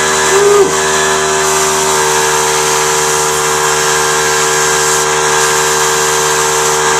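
Small airbrush compressor running steadily, a constant motor hum under a hiss of air from the airbrush.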